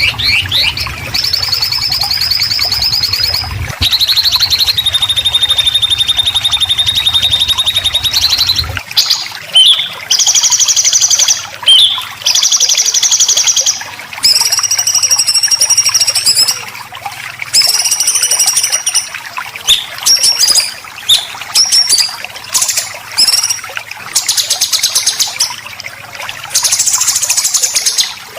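Songbird 'besetan': a series of harsh, high-pitched buzzing rattles, each held for one to four seconds with short breaks between them. A low hum lies under the first third and stops about nine seconds in.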